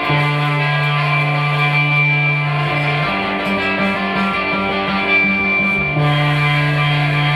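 Rock band playing a punk song's instrumental intro, electric guitars holding chords that change about every three seconds.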